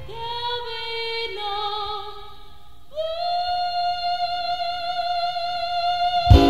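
A female blues singer holds sung notes with almost no accompaniment: a few notes stepping downward, then one long note held with vibrato. The band's drums and guitar come back in near the end.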